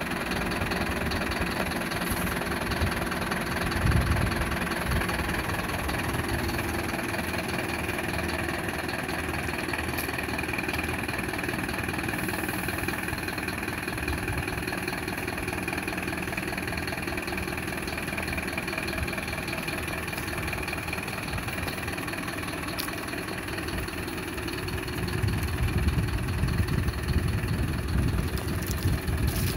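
Mercedes-Benz Atego 822's four-cylinder diesel engine idling steadily, with a heavier low rumble near the end.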